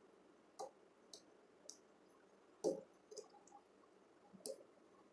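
Faint, scattered clicks of a screwdriver and wire at the terminal screw of a thermal overload relay as a wire is fitted into terminal 95: about seven, the loudest about two and a half seconds in.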